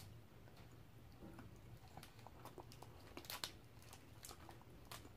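Faint chewing and crunching of milk-chocolate sticks coated in crushed pistachios, with a few small sharp clicks and crinkles scattered through, mostly after the middle.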